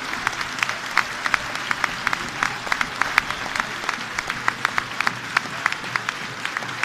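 Football stadium crowd applauding steadily in a long tribute applause for the club's late co-founder, with sharp single claps from people close by standing out against the massed clapping.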